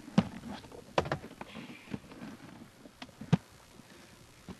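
A handful of sharp knocks and clunks at irregular intervals. The loudest come just after the start and a little past three seconds in.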